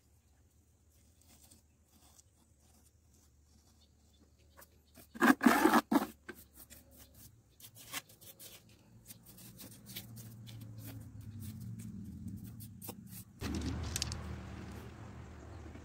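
Hands working in a plastic pot mould of wet cement: scattered scrapes and clicks, with a loud clattering burst about five seconds in. A low hum builds in the second half, and a louder rustling scrape starts sharply near the end as a handful of small stones is brought in.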